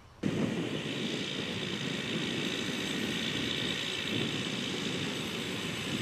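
Farm tractor pulling a round baler, its engine running steadily; the sound starts abruptly just after the start.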